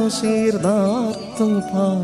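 A man singing a melody into a microphone, holding long notes that bend and waver in pitch, with short breaks between phrases.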